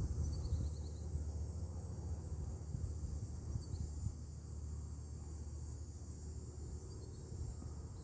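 Steady insect chorus: a high trill pulsing about three times a second over a low rumble, with a few brief faint bird chirps.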